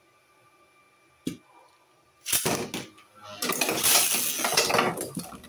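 A click about a second in, then Beyblade spinning tops clattering and scraping against each other and the walls of a hard plastic stadium. The rattling is loudest as a hand grabs the tops out of the stadium.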